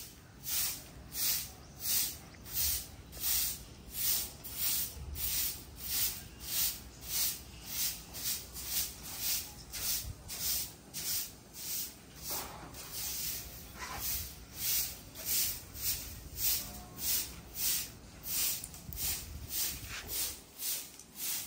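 Broom sweeping a concrete floor: steady, even swishing strokes, about one and a half a second.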